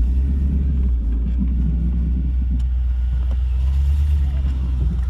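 1982 Camaro Z28's V8 engine idling steadily with a deep low rumble. A couple of faint clicks come around the middle.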